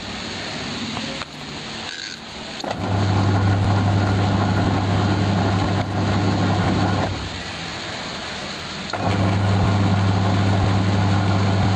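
Newly fitted wash motor of an LG twin-tub washing machine running the wash tub's agitator with a steady electric hum, running about four seconds, pausing about two seconds, then starting again: the alternating on-off of the wash cycle.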